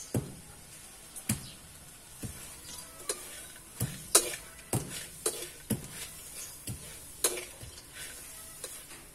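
Metal ladle scraping and knocking against a steel wok while stirring roasting insects: irregular clinks and scrapes, about one or two a second, some with a short metallic ring, over a faint hiss.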